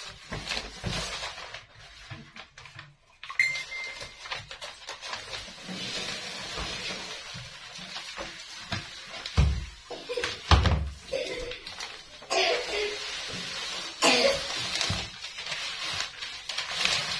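Self-adhesive contact paper rustling and crackling as its backing is peeled off and the sheet is unrolled and pressed down onto a stone countertop. Two heavy thumps come about ten seconds in.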